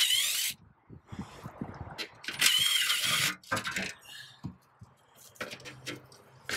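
Cordless impact wrench spinning out the 13 mm bolts of a car's under tray: a short burst at the very start and a second, longer burst of about a second a couple of seconds in, each a whirring rattle with a wavering whine. A few knocks and clatters follow as the under tray comes loose.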